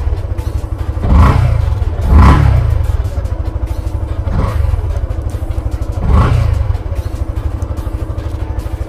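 Yamaha FZS V3's single-cylinder engine and exhaust idling with a steady low pulse, blipped four times with quick throttle revs that rise and fall back to idle, about one, two, four and a half and six seconds in.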